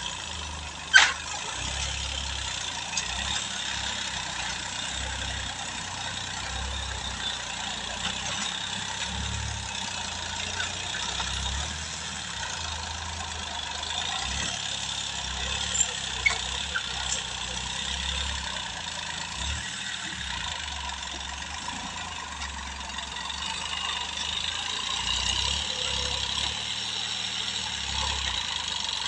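Farm tractor's diesel engine running steadily at a distance as it drags a levelling implement through heaped soil, with a sharp click about a second in.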